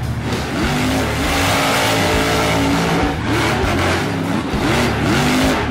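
Losi LMT RC monster truck's brushless electric motor and drivetrain whining, rising and falling in pitch as the throttle is pulsed, several times in quick succession in the second half.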